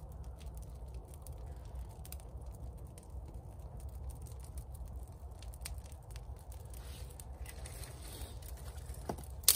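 Dry dead birch twigs being handled, with scattered light crackles over a low steady rumble, then one loud sharp snap of a twig near the end. The crisp snap is the sign that the wood is bone dry.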